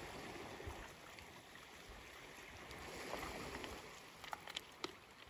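Faint, steady rush of the sea and wind on a shingle shore, with a few light clicks about four seconds in.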